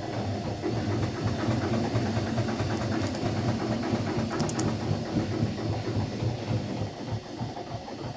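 Samsung Bio washing machine running: a steady low hum with rapid, irregular knocking.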